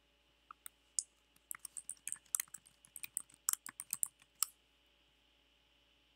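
Typing on a computer keyboard. A few single key clicks come first, then a quick run of key presses that stops about four and a half seconds in.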